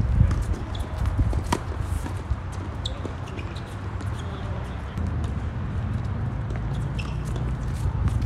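Tennis rally on a hard court: sharp pops of racket strings striking the ball and the ball bouncing, the clearest about one and a half seconds in, over a steady low rumble.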